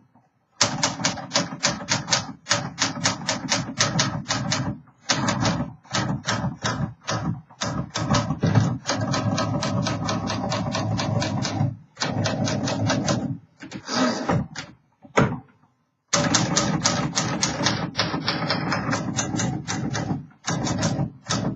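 1957 Remington Quiet Riter manual typewriter being typed on: quick runs of keystrokes, several a second, broken by short pauses.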